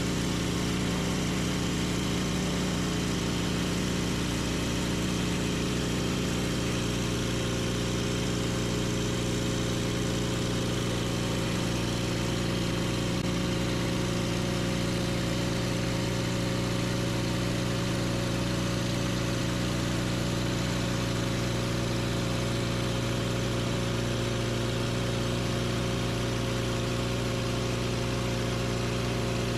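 Portable sawmill's engine running steadily, its note shifting slightly about seven seconds in.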